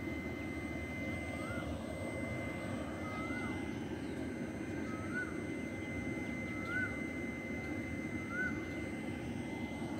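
Steady low hum of a stationary WAG-9HC electric locomotive at standstill, with a thin high whine over it. A bird gives a short rising-and-falling call about every one and a half to two seconds, six times.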